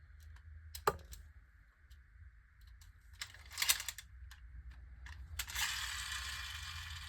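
Beyblade X string launcher being reloaded by hand: scattered plastic clicks and ratcheting, with a short rasp about three and a half seconds in and a longer rasping stretch over the last second and a half.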